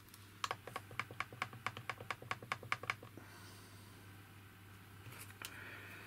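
A quick run of about a dozen small, evenly spaced clicks, about five a second, lasting about two and a half seconds, made while a capacitor is connected to an LCR meter's test leads. Faint scratching follows near the end.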